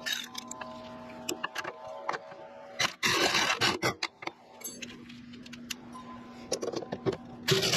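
A wrench working the nut on a stainless steel exhaust hanger bracket: scattered metal clicks and clinks, with louder scraping rasps about three seconds in and again near the end.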